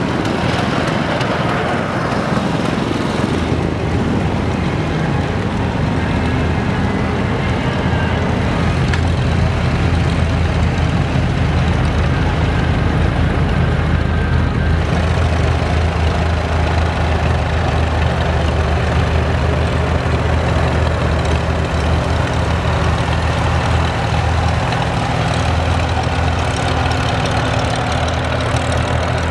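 Engines of slow-moving parade vehicles passing: small motorized cars and a utility vehicle, then old farm tractors running at low speed. A steady low engine drone that grows stronger about halfway through.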